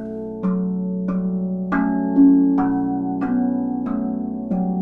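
RAV steel tongue drum played by hand: single notes struck about every half second to second, each ringing on long and overlapping the next into a slow, sustained melody.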